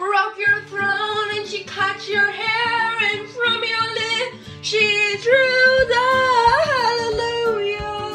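A girl singing along loudly to a pop song playing in the background. About five seconds in she holds a long note that swoops up and back down.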